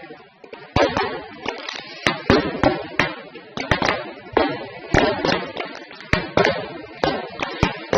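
Fireworks going off: an irregular, rapid series of sharp bangs, several a second, with crackling between them.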